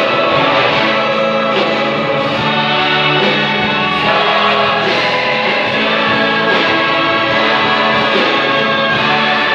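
Large choir singing a sustained choral piece, with instruments accompanying it.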